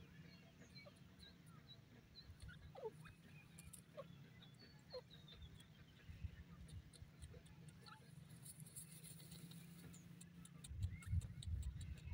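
Faint scratching and rustling of sand as a francolin dust-bathes, with scattered faint bird chirps and a low rumble, and a few louder low thumps near the end.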